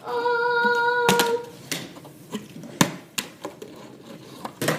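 A child hums one steady held note for about a second and a half. Then come several sharp knocks as a plastic water bottle is flipped and handled on the floor.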